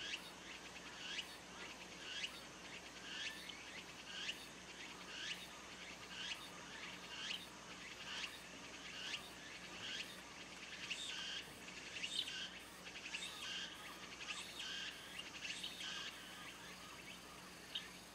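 A tsukutsukuboshi cicada calling, its short phrase repeating evenly about once a second, with Eurasian tree sparrows chirping.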